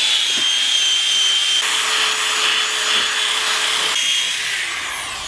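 Drill spinning a wire brush attachment against the bottom of a cast iron skillet, scrubbing off rust loosened by a vinegar soak: a steady motor whine over a scratchy scrubbing hiss that fades and winds down near the end.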